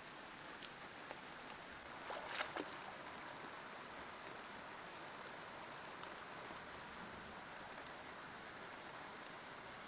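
Steady hiss of running water, with a few sharp snaps and rustles about two and a half seconds in as water spinach stems are picked by hand. A few faint high chirps near the end.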